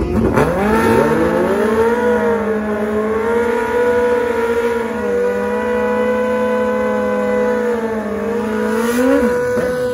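Race car engine accelerating hard, its pitch climbing quickly and then held high and steady for about eight seconds, dipping briefly near the end before rising again.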